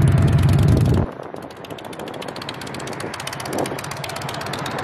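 Street traffic: a vehicle's low rumble, loud for about the first second, then dropping suddenly to a quieter steady hum with rapid faint ticking.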